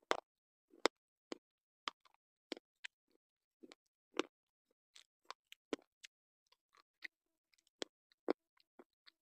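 White slate pencil being chewed: sharp, irregular crunches about twice a second.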